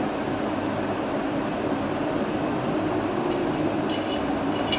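A steady rumbling hum throughout. In the last second and a half come a few faint metallic clinks as the steel barrel and slide of a .30 bore pistol are handled.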